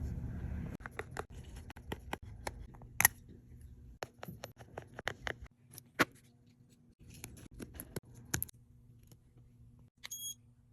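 Irregular small clicks and taps of hand tools handling an iPhone as it is worked on for cleaning. A short electronic beep comes near the end.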